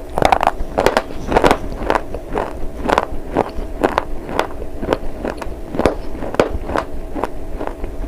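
Close-up crunching as a slate bar is bitten and chewed, a steady rhythm of about two crisp crunches a second.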